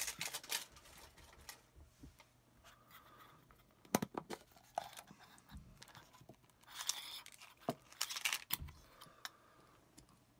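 Faint handling noises of trading-card packaging and contents: scattered sharp clicks, scrapes and short rustles. A sharp click comes about four seconds in, and there are brief rustles a little before and after eight seconds.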